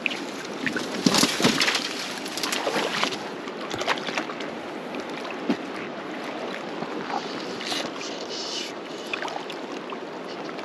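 Fast river water rushing and sloshing along a rocky bank. About one to three seconds in there is a close burst of rustling and knocking, with scattered clicks after it.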